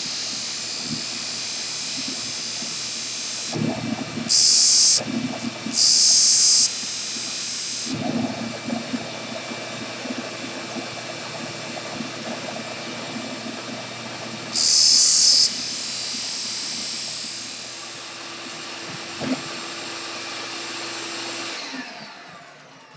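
Disc sander motor running steadily, with three short, loud rasps as the end of a wooden dowel is pressed against the abrasive disc to sand a taper. Near the end the motor is switched off and winds down with a falling whine.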